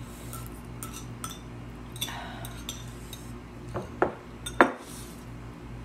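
Chopsticks and a metal spoon clinking and scraping against ceramic noodle bowls, with two sharper clinks about four and four and a half seconds in.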